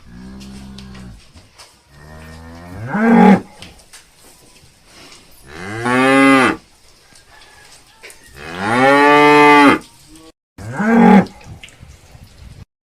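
Water buffalo lowing: about five long, pitched calls in a row, the first one quieter, several of them rising in pitch toward their end.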